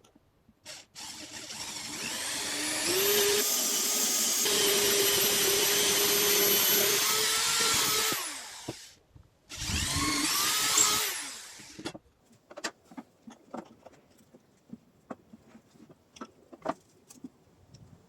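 Handheld electric power tool motor spinning up, running steadily for about five seconds and winding down, then a second short run of about two seconds; light knocks and clicks of handling follow.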